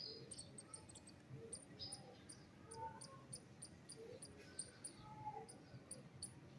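Faint bird calls: soft rising-and-falling notes about once a second, over a faint, rapid high-pitched ticking of about three to four a second.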